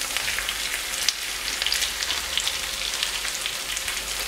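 Diced onions and chopped white cabbage frying in hot coconut oil in a pan: a steady sizzle with fine crackles as the freshly added cabbage hits the fat.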